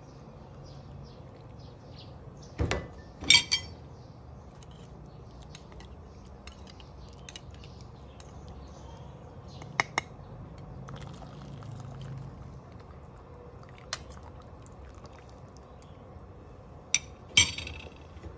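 Metal ladle skimming foam off a pot of boiling water: a steady bubbling background with several sharp clinks and knocks as the ladle hits the pot and the bowl, loudest about three seconds in and twice near the end, and the liquid pouring off the ladle.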